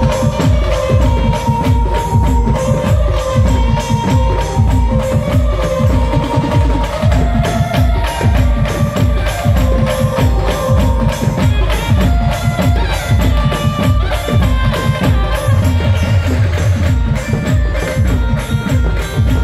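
Instrumental passage of a live folk band: a melody of held notes over a heavy, steady drum and percussion beat.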